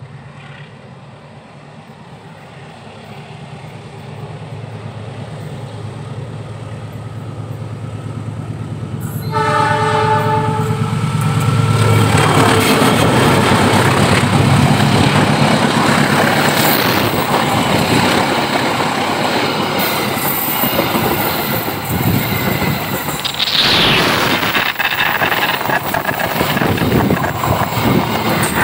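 Passenger train approaching and passing: the diesel locomotive's engine drone grows louder, its horn sounds once about nine seconds in, and then the coaches rush past close by with loud wheel clatter on the rails.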